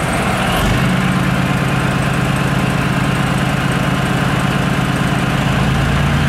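Heavy military vehicle engine idling steadily, a constant low running hum.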